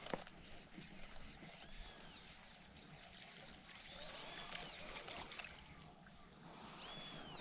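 Faint water ambience around a kayak: light trickling and lapping, with a sharp click just after the start and a few short arched whistled calls, about three times.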